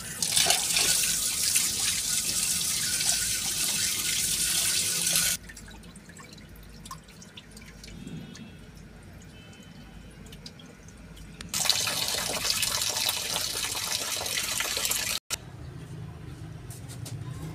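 Water running from a tap into a steel tray of rice as the rice is washed, in two spells of about five and four seconds. Between them there is a quieter stretch while the rice is stirred by hand, and the second spell cuts off suddenly.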